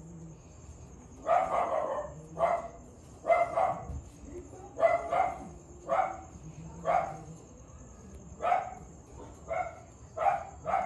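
A dog barking repeatedly, about a dozen short barks at uneven intervals.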